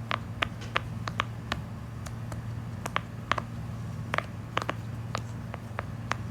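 Cupcake-shaped silicone pop-it fidget toy having its bubbles pressed through one after another: a string of sharp little pops at irregular intervals.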